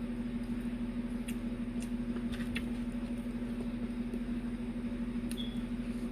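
A steady low hum from a motor or appliance in the room, with a few faint clicks and smacks from eating.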